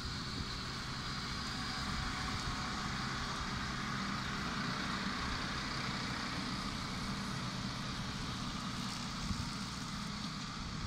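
Multihog CX75 tool carrier's diesel engine running steadily under load while its front-mounted Trimax Stealth 340 rotary mower deck cuts grass. A low, even engine note with a steady hiss above it.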